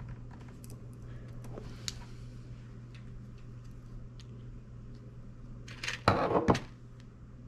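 Light clicks and handling noises of small parts over a steady low hum. About six seconds in comes a brief, loud clatter with two sharp knocks.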